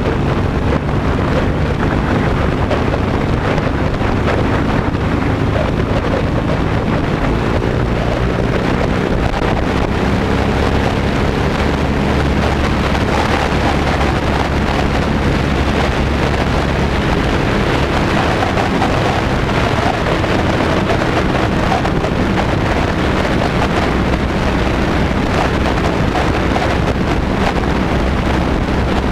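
Loud, steady wind noise buffeting a GoPro's microphone mounted on a motorcycle crash bar at riding speed. The motorcycle's engine runs steadily underneath.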